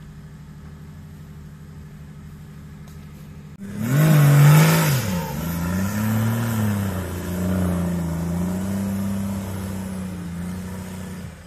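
Off-road race vehicle engine. It runs steadily at low revs. About three and a half seconds in it jumps to loud revving, the pitch swinging up and down. It then holds a hard-working, slightly wavering note under load.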